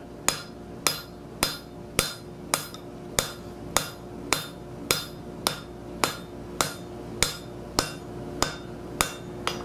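Hand hammer striking a hot steel bar on an anvil in a steady rhythm of a little under two blows a second, each blow with a short ring. This is drawing the bar down to about 1 inch square. A steady hum runs underneath.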